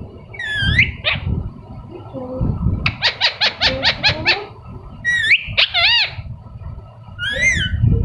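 Young parrot calling: a few short squawks that rise and fall, then a quick run of about ten short chirping notes, then more squawks, the last near the end.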